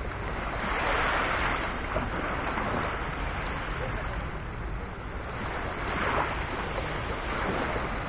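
Small sea waves breaking and washing up the shore in gentle surf, swelling up twice, about a second in and again about six seconds in.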